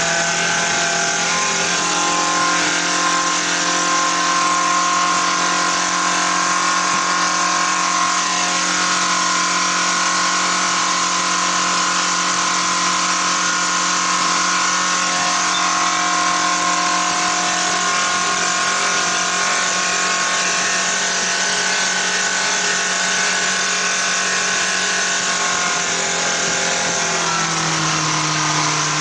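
Bearcat 85 hp outboard motor running steadily at speed, over the rush of water and wind from the hull and wake. Near the end the engine note drops as it is throttled back.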